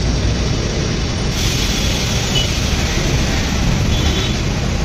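Steady low rumble of road traffic, with a faint high squeal about four seconds in.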